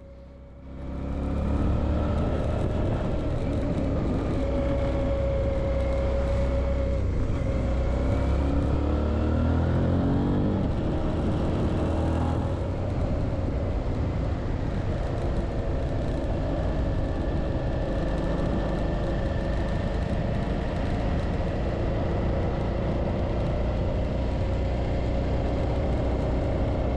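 Suzuki V-Strom 650's V-twin engine running steadily under way. Its pitch climbs about ten seconds in as it accelerates, then holds steady.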